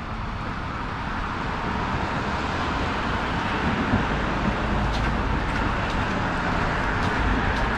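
City street traffic going by, a steady rush of engine and tyre noise that grows gradually louder through the stretch as vehicles approach.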